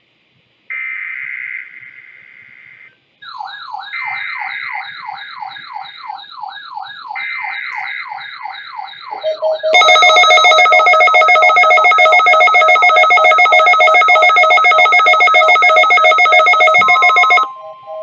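Emergency Alert System SAME header data bursts, three buzzy squeals each about two seconds long, with a weather radio receiver's siren-like alert sweeping down over and over starting about 3 s in. About 10 s in a very loud, rapidly pulsing electronic alarm takes over for about seven seconds, and near the end the steady 1050 Hz weather radio warning tone begins.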